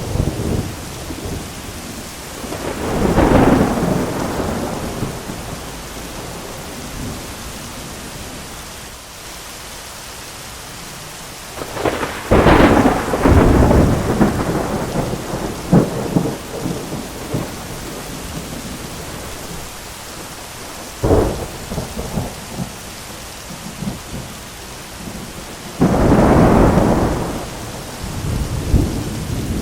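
Thunderstorm: steady heavy rain with repeated thunder. A peal comes a few seconds in, a long crackling roll with sharp cracks runs through the middle, a single sharp crack follows, and a loud rumble comes near the end.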